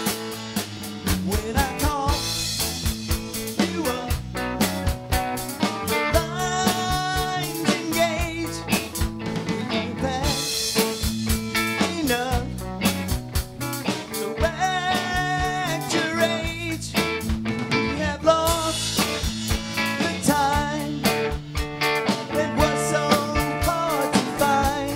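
Live band playing a song on electric guitars, bass guitar and drum kit, with singing over it.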